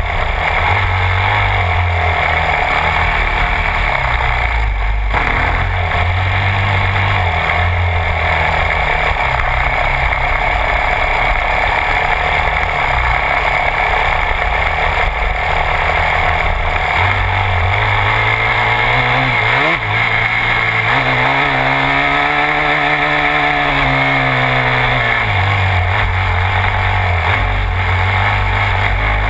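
Yamaha YZ250F dirt bike's 250cc four-stroke single-cylinder engine running under way, its pitch stepping up and down with throttle and gear changes, with one long rise and fall of the revs about two-thirds of the way through.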